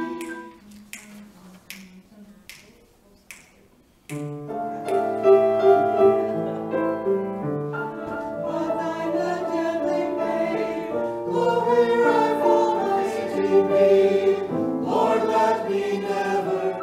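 A church choir sings a hymn in parts with piano accompaniment. The opening phrase breaks off almost at once, a few sharp clicks about two a second keep time, then the choir comes back in and sings on, stopping just before the end.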